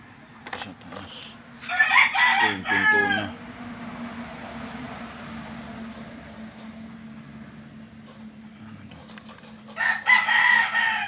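A rooster crows twice, once about two seconds in and again near the end. Light clicks come from the wire dog crate's door and spring latch being handled.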